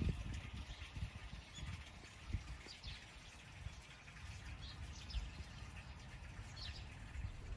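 Outdoor ambience: a few scattered short bird chirps over a faint steady hiss, with an irregular low rumble and soft bumps throughout.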